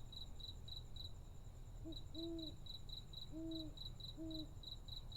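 Owl hooting three times, each hoot a low note that bends up and falls back, about two, three and four seconds in. Behind it, crickets chirp steadily at about four chirps a second, as a night-time backdrop.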